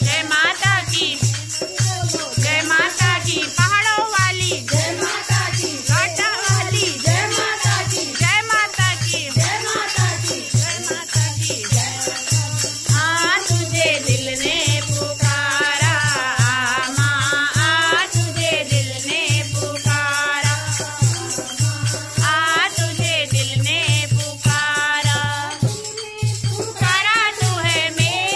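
Women singing a Hindu devotional bhajan (kirtan) into a microphone, accompanied by the jingling of a chimta and clappers keeping a steady beat of about two strokes a second, with a low thud on each beat.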